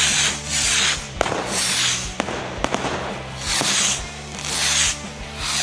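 Ground-launched fireworks firing in a series: a run of hissing whooshes a second or so apart as shots leave the tube, with a few sharp cracks of bursting stars between them.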